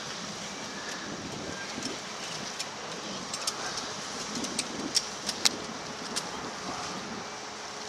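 Steady wind noise on the microphone, with a scatter of short sharp clicks and knocks from the roped rescuers' harness gear and movement against each other. The two loudest clicks come about five seconds in.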